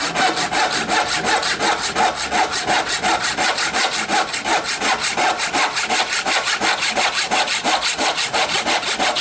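Brass-backed dovetail saw cutting by hand down a line in a wooden baluster, in quick, even back-and-forth strokes.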